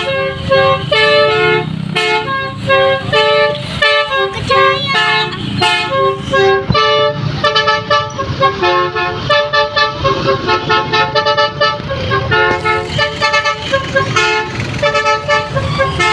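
Telolet horn of a Sido Mukti bus, a multi-tone musical horn playing a fast, continuous tune of short stepped notes.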